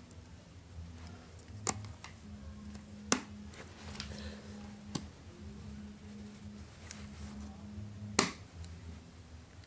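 RAM modules being pushed into a Mac Pro's memory slots: handling noise and four sharp clicks a second or more apart, the last the loudest, over a steady low hum.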